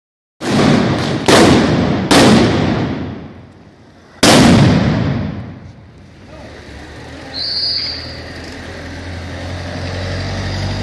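Four loud firecracker bangs in quick succession, the last after a short pause, each echoing off the buildings as it dies away.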